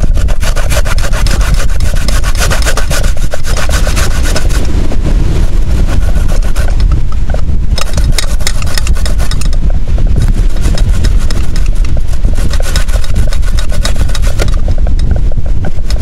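Coconut flesh being grated by hand on a metal box grater: quick, rhythmic rasping strokes in runs, with a few brief pauses.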